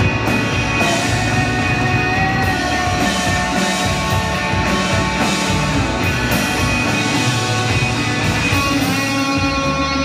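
Live rock band playing: electric guitar holding long, ringing notes over bass guitar and drum kit, changing to a new chord at about nine seconds.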